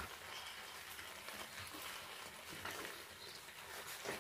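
Faint, steady sizzling of white pasta sauce cooking in a pan on the stove, with a soft knock near the end.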